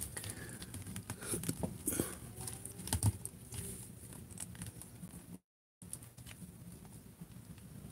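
Plastic action figure being handled and posed: scattered small clicks and knocks of its jointed limbs and of fingers on the plastic, with one louder knock about three seconds in. The sound cuts out completely for a moment about five and a half seconds in.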